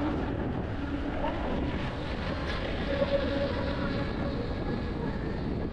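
Steady wind rush on the microphone over the running engine and road noise of a motorbike riding along at speed.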